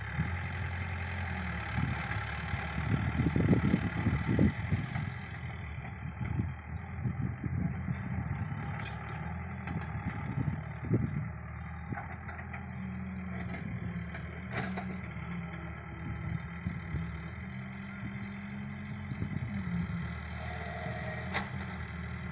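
Excavator engine running steadily, louder for a few seconds near the start, with a few sharp clanks now and then.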